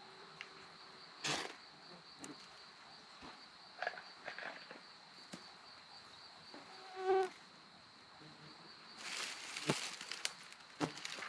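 Night insects calling in a steady high-pitched drone, over scattered rustles and crackles of dry grass kindling being handled and catching alight, busiest about nine seconds in. A short pitched sound about seven seconds in is the loudest moment.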